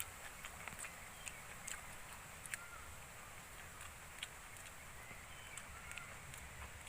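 Close-up chewing of crunchy okra: irregular crisp clicks and smacks, a few louder than the rest. Faint short chirps sound now and then behind it.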